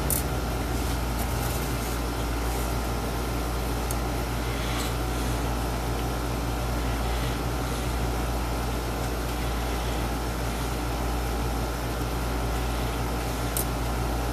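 Steady mechanical hum: a constant low drone with an even hiss, with a few faint, short ticks.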